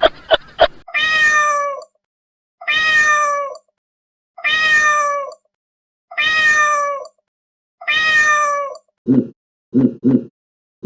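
Domestic cat meowing five times in a steady series, each meow a long call falling in pitch. It is preceded by a few quick clicks and followed, near the end, by a run of short low grunts from another animal.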